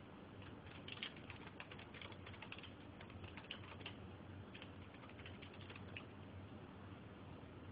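Faint typing on a computer keyboard: quick, irregular key clicks that stop about six seconds in, over a low steady hum.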